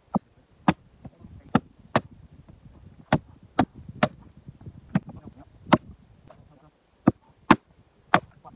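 Axe chopping into a jarrah stump, splitting off firewood: about a dozen sharp chops at uneven intervals, roughly one or two a second.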